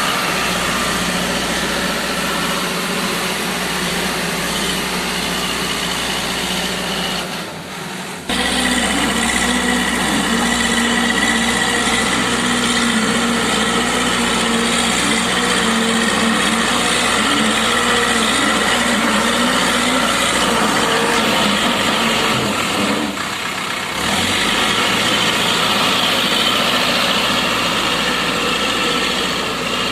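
Old JCB 3D backhoe loader's diesel engine running steadily, with two brief drops in level, about a quarter of the way in and again about three quarters through.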